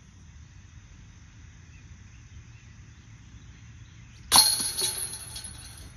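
Discraft Luna putter striking the hanging steel chains of a disc golf basket about four seconds in: a sudden metallic clang and then the chains jingling as they settle, for about a second and a half.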